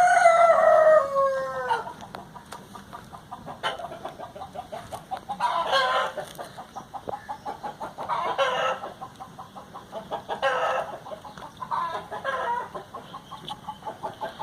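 A rooster crows once, its call falling away over about two seconds, then chickens cluck in short bouts every couple of seconds.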